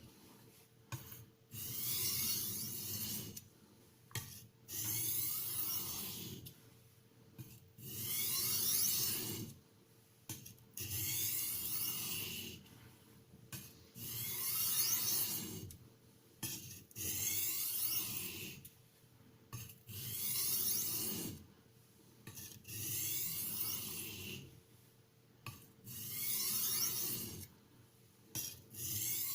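A knife edge is drawn across a hard Haidu HCJ-H white aluminium oxide whetstone (JIS 6000 grit) in about a dozen slow, even strokes, each about a second long with a short pause between. The strokes are light micro-bevel passes, alternating sides.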